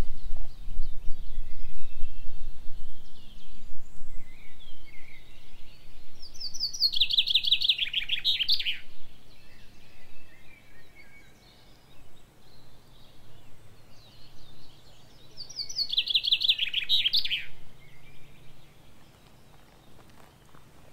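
Woodland songbirds singing: one bird gives two loud song phrases about ten seconds apart, each a quick run of notes falling in pitch, with fainter calls of other birds between.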